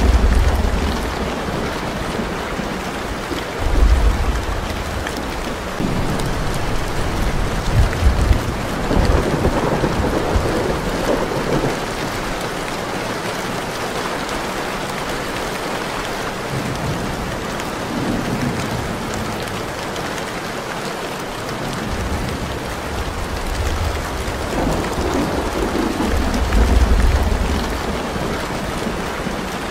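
Steady heavy rain with low rumbles of thunder rolling in every few seconds: a thunderstorm ambience track.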